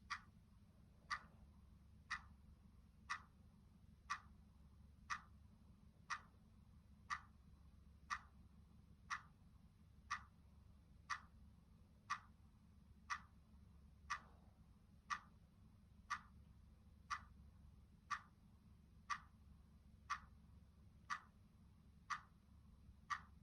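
Clock ticking steadily, one sharp tick about every second, over a faint low hum.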